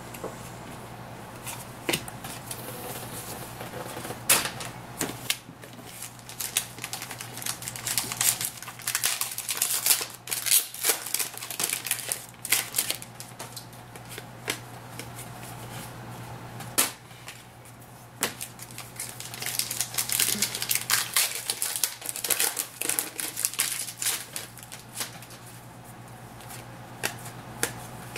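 2011-12 Panini Contenders hockey cards being flipped through by hand, a quick run of clicks and snaps as each card slides off the stack, over a steady low hum. The clicking thickens twice, about a third of the way in and again past two-thirds.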